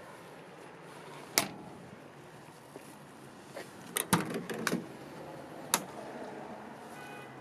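Sharp knock about a second and a half in, then a cluster of clicks and clunks as the Toyota HiAce's front cab door handle is pulled, the latch releases and the door swings open, with one more sharp click a second later.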